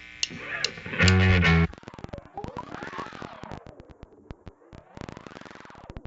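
Noisy experimental music: a short, loud distorted chord about a second in, then scattered clicks and glitchy crackles.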